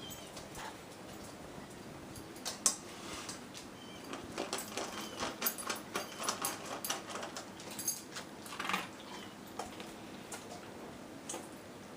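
Dog eating from its food bowl: a run of irregular clinks, rattles and crunches in the middle, as food and the bowl are knocked about.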